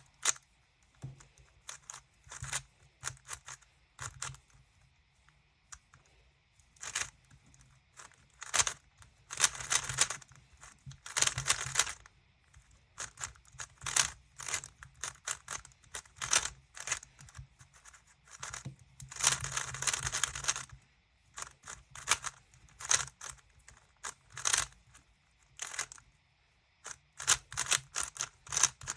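GAN 356 Maglev speedcube being turned fast in a timed solve: bursts of quick plastic clicking and clattering layer turns, with short pauses between bursts.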